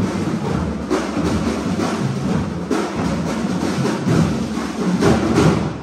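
Drum-heavy percussion music accompanying a marching and flag routine, with loud strikes every second or so. It stops right at the end and dies away.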